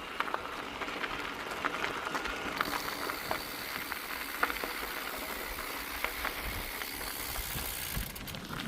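Mountain bike in motion on a trail: tyre noise with frequent clicks and rattles from the bike, and a high hiss of wind from about two and a half seconds in until near the end.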